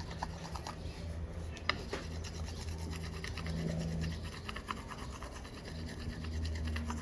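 Quartz stone rubbed quickly back and forth over a dry, unfired clay cup, a faint rapid scraping with an occasional small click: the clay being burnished to a shine before firing.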